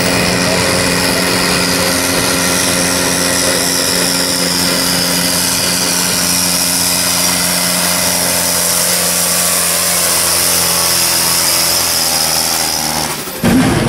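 Diesel engine of a farm tractor running at full throttle while pulling a weight-transfer sled, with a high whine that slowly falls in pitch as the load builds. Near the end the sound breaks off abruptly and another tractor's engine starts.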